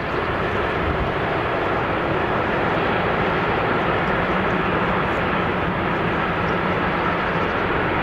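Freight train rolling on the rails, a steady loud rumble of wheels and wagons that holds unchanged throughout.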